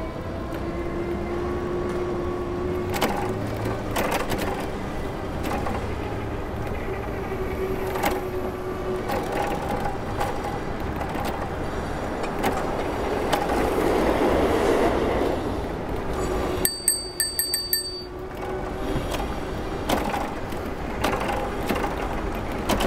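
City street traffic heard from a moving bicycle: an engine whine holding a steady pitch, scattered knocks and clatters, and a louder swell of passing-vehicle noise a little past halfway. A brief high metallic ringing comes about three-quarters through.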